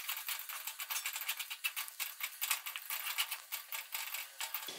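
Wooden spatula scraping and clicking against a metal kadhai while stirring gram flour (besan) that is being roasted in oil, a quick irregular run of short scrapes and taps.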